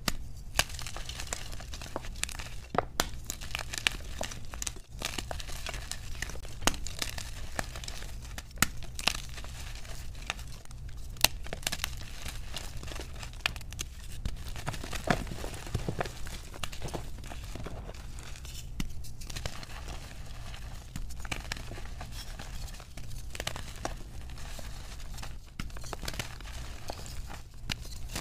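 Blocks of gym chalk crushed and crumbled by hand, a steady dry crunching and crackling with frequent sharp snaps as pieces break off.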